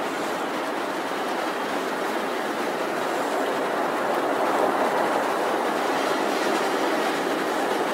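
Steady, even rushing outdoor noise with no distinct events, swelling slightly about halfway through.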